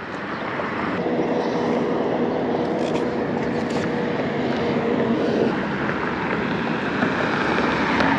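Steady drone of an engine passing by, with a faint hum that stops about two-thirds of the way through.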